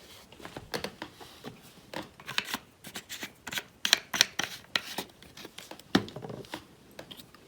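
Close handling noises: a quick irregular run of light clicks, taps and rustles as a roll of double-sided tape and a small pocket clip are handled and worked by hand.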